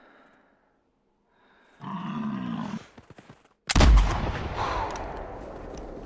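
A single loud buffalo rifle shot a little past the middle, booming and then echoing away slowly. About a second before it comes a short, low, pitched grunting call.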